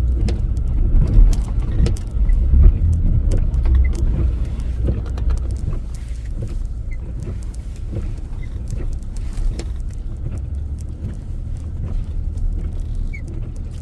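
Vehicle driving through deep snow, heard from inside the cab: a steady low rumble with scattered light clicks and knocks, loudest in the first few seconds.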